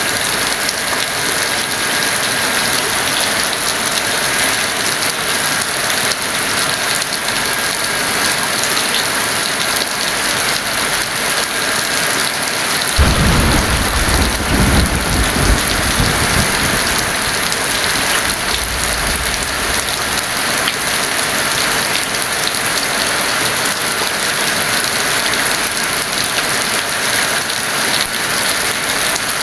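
Heavy rain falling steadily as an even hiss, with a sudden clap of thunder about halfway through that rumbles low for a few seconds and dies away.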